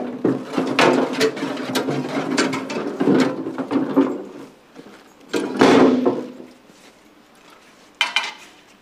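Steel hand truck clattering and scraping as a heavy billet aluminum block is slid off its nose plate onto a steel diamond-plate floor scale. There is a heavy clunk right at the start and another a little past halfway. A short knock comes near the end.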